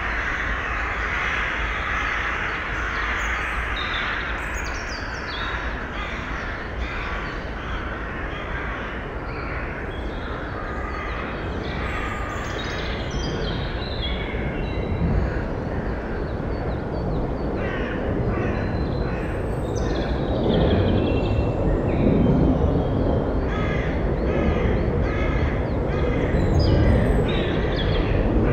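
Harsh bird calls repeated in quick, even succession, growing louder and more frequent in the second half, over a steady background rumble, with a few higher falling whistles from other birds early on.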